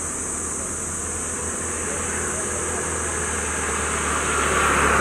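Motor vehicle passing on a nearby road, its engine and tyre noise swelling as it approaches near the end, over a steady low hum and a steady high hiss.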